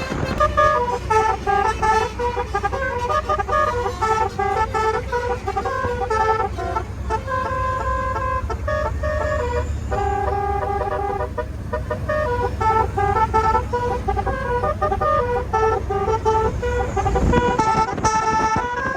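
Telolet basuri multi-tone car horn playing a tune of short chord-like notes that change pitch every fraction of a second, over a low vehicle rumble.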